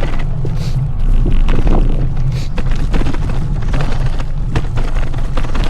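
Wind rumbling on the camera microphone of a road bike riding in heavy rain, over the hiss of tyres on the wet road, with many scattered sharp clicks.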